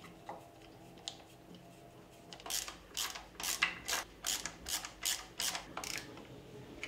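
Ratcheting screwdriver driving a screw home, the ratchet clicking through a run of about nine back-and-forth turns, a little over two a second, starting a couple of seconds in.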